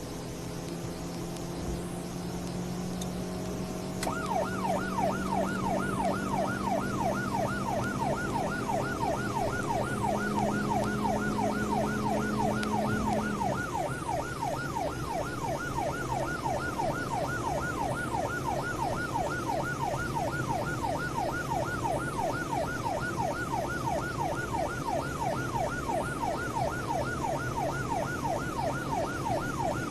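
Police car's "yelp" siren switched on about four seconds in, sweeping rapidly up and down about three times a second. Under it the car's engine note rises steadily, then drops about halfway through.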